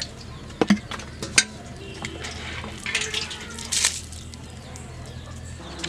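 Raw fish steaks being handled in a steel bowl of water: a few sharp clinks against the metal in the first second and a half, then short wet sloshes.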